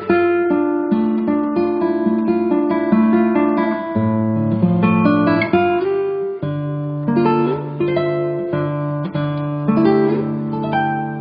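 Background music: acoustic guitar strummed and picked through a changing chord progression.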